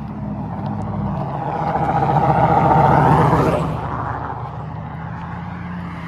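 A road vehicle passing close by: engine and tyre noise swell to a peak about three seconds in and then fade, with a low engine hum carrying on after it.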